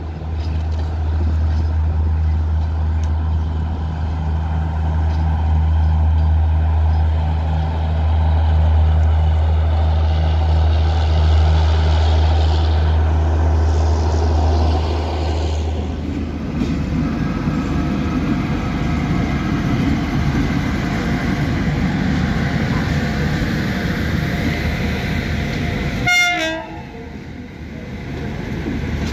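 Steady deep diesel drone from the departing Garib Rath train, which has a WDP-4D diesel locomotive and a generator power car. About halfway through it cuts off abruptly to the rolling rumble of passenger coaches passing close by behind an electric locomotive, with a brief horn sounding near the end.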